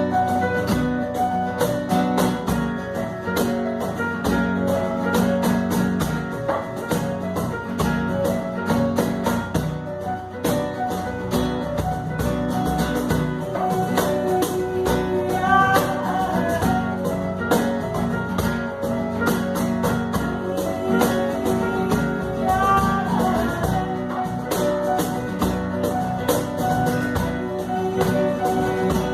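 A small family group playing a song live at home: guitar with a steady, quick percussion beat throughout, and singing in places.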